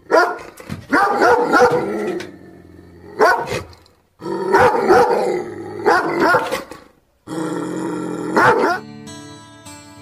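German Shepherd barking aggressively in four bursts separated by brief silent gaps. Music takes over near the end.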